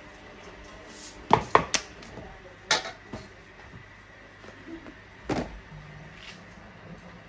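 Kitchen utensils and cookware knocking and clattering: three quick knocks a little over a second in, another near three seconds, and one more past five seconds.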